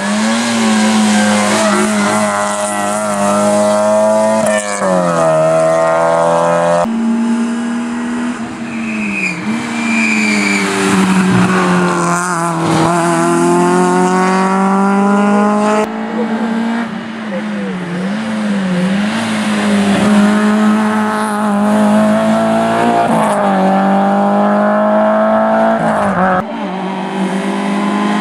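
Small hatchback rally cars' engines revving hard, the pitch climbing and dropping again and again through gear changes as each car approaches and passes. Several cars are heard one after another.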